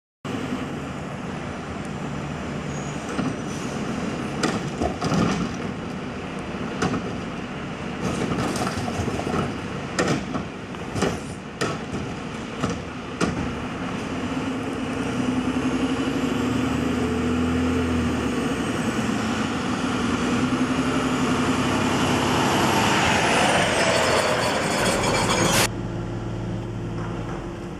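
Front-loading residential garbage truck at work. Repeated clanks and bangs from the cart-handling gear come first. Then the diesel engine revs up with a rising and falling hydraulic whine as the arms lift the carry can over the cab, and the sound cuts off sharply near the end to a quieter steady engine drone.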